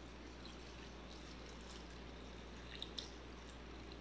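Water pouring in a thin, steady stream from a plastic jug into a steel pot of cut pumpkin and green chillies, faint, with a couple of light ticks about three seconds in.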